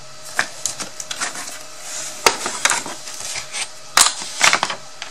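Thin wooden craft pieces being picked up, moved and set down on a table: a series of light clicks and knocks with some rustling, the two sharpest knocks about two and four seconds in.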